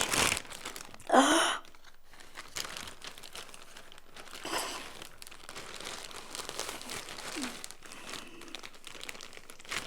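Rustling and crinkling of packaging as a handbag is unboxed, with a short vocal exclamation about a second in.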